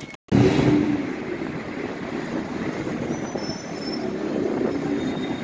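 Steady street traffic noise: a loud, even rumble of passing road vehicles, starting abruptly after a brief dropout near the start.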